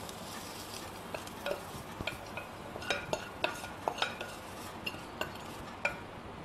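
A spoon scraping and tapping inside a stainless steel saucepan: a string of light, irregular clinks and scrapes as a fried onion and dal mixture is emptied out into a glass bowl of batter.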